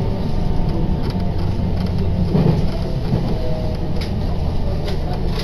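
Inside a JR Tokaido Line electric commuter train in motion: the steady low rumble of the car running on the rails, with a couple of faint clicks near the end.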